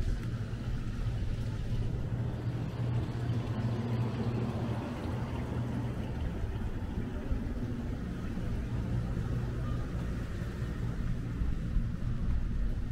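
City street traffic: a steady low engine hum, with passing cars swelling the noise somewhat in the middle.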